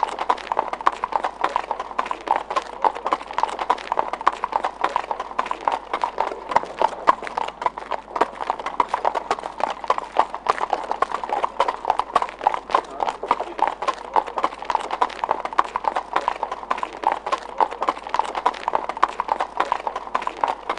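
Several horses walking on pavement, their shod hooves clip-clopping in a dense, continuous run of sharp strikes.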